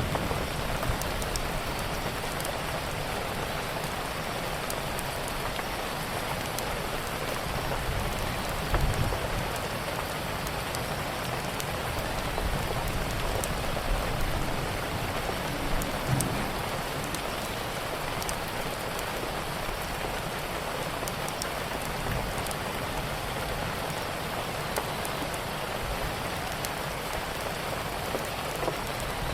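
Steady rain falling, with scattered sharp crackles from a wood fire through it and a couple of soft low rumbles.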